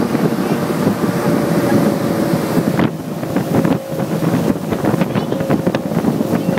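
Motorboat under way at speed: engine running with the wake churning and spraying behind, and wind buffeting the microphone.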